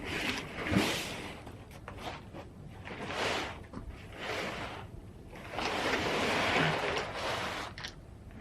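Ocean waves washing onto the shore, swelling and fading in several surges, with wind on the microphone.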